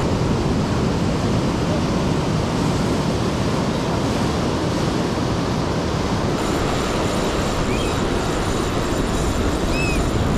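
Steady rush of ocean surf with a heavy low rumble, and two short, faint high chirps near the end.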